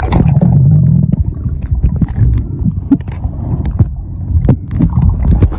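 Muffled underwater rumble of water moving around a submerged camera, with scattered knocks and clicks from handling.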